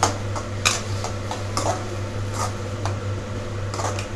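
Metal spoon stirring vegetables in an aluminium kadai, scraping and knocking against the pan about seven times at irregular intervals, over a steady low hum.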